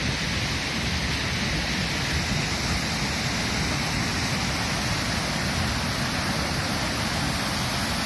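Kaveri river water pouring over a long, low weir and churning into white water below: a steady rushing noise. The river is in high flow from water let out of the KRS dam upstream.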